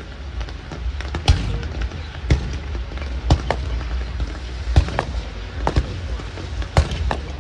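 Fireworks bursting in a show, sharp bangs about once a second with smaller pops between them.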